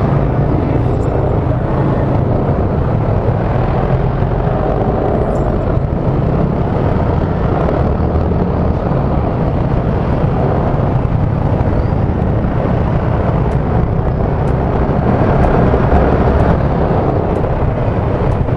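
Strong, steady wind noise buffeting the microphone of a moving motorcycle, a loud rumble heaviest in the low end, with the motorcycle and traffic underneath it.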